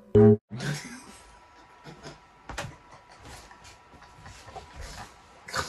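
A last short musical note right at the start, then the rustle of clothing and scattered light hand slaps from two people play-fighting, with a sharper slap about two and a half seconds in and another near the end.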